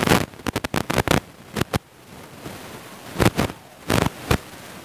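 Irregular sharp clicks and crackles, a quick cluster in the first two seconds and a few more after about three seconds, over a faint hiss.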